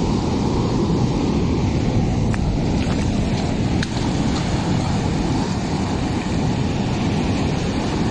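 Steady, loud wind rumbling on the microphone over the wash of surf breaking on the reef.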